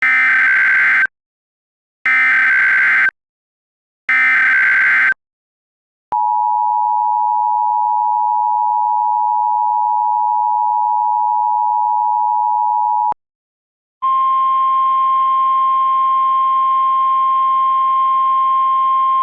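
Emergency Alert System alert opening: three bursts of SAME digital header data, each about a second long and two seconds apart. Then the EAS two-tone attention signal is held steady for about seven seconds. After a short gap comes a single steady, slightly higher alert tone with hiss beneath it, the NOAA Weather Radio 1050 Hz warning tone.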